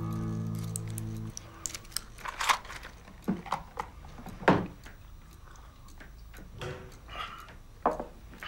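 Sustained background music that cuts off abruptly about a second in, followed by quiet room tone with scattered small clicks and taps from handling small objects at a desk and from laptop keys, with one louder knock about halfway through.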